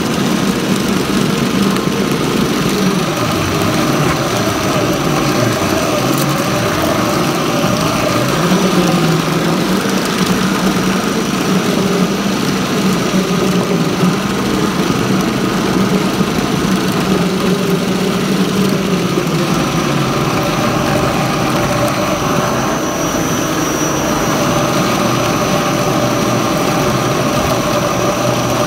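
Motorised meat-paste grinder running steadily, its bowl and blade churning ground meat into a smooth paste with a constant machine hum.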